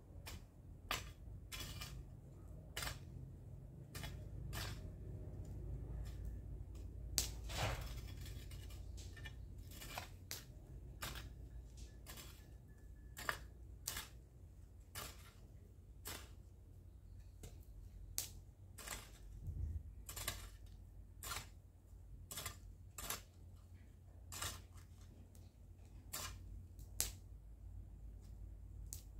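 Hand hoe chopping into garden soil, a sharp strike about every half-second to a second, over a low steady rumble.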